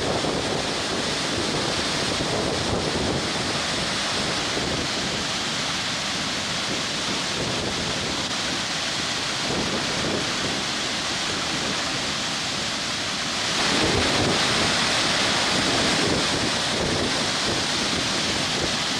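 Steady rush of floodwater pouring from the Bhadra Dam's open crest gates into the river below, growing a little louder about two-thirds of the way through.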